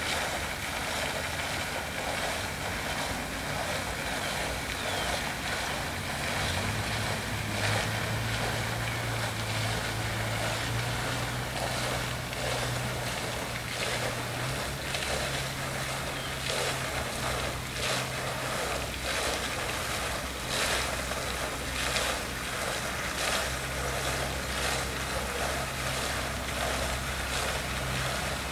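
Low hum of a model ship's motor that steps up in pitch about seven seconds in and again about halfway through, over a steady hiss.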